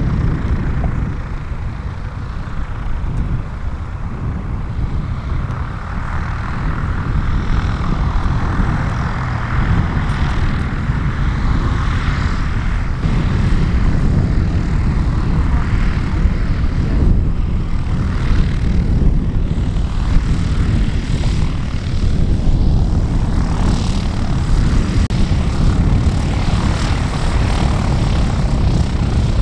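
Light propeller aircraft engine running steadily, getting a little louder after the first few seconds.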